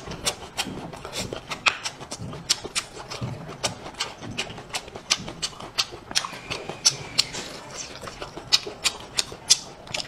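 A person chewing braised meat with the mouth closed, close to the microphone: wet smacking and clicking sounds, a few a second, with no speech.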